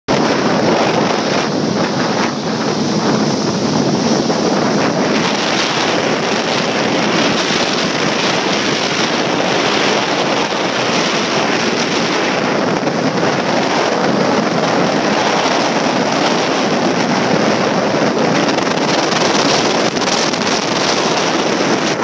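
Steady wind buffeting the microphone over the rush of water, heard from aboard a moving motorboat.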